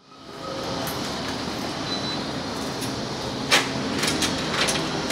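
Steady hiss of background noise, with a few sharp clicks from about three and a half seconds in as the handle and latch of a metal-framed glass door are worked to open it.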